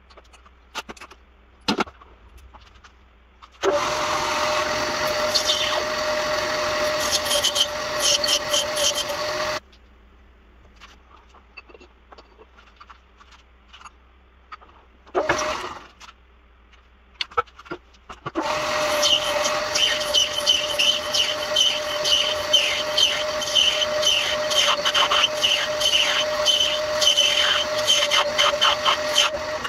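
Old metal lathe running in two spells, starting about four seconds in and stopping again, then restarting about halfway through: a steady motor hum under a dense rattle of ticks as the tool cuts bronze. Between the runs, scattered clicks and knocks of the tool post and chuck being handled.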